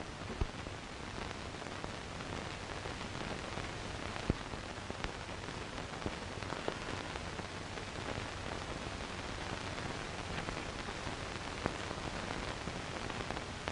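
Steady hiss with scattered crackles and pops from an old optical film soundtrack, with no dialogue or music.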